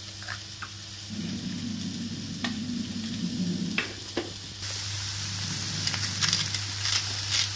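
Onions, sausage and capsicum frying in a pan: a steady sizzle with crackles, louder from about halfway through. A few light clicks and a low hum come in the first half.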